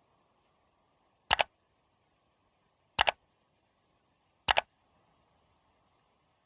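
Camera shutter click effect, heard three times about one and a half seconds apart, each a quick double click, over otherwise dead silence.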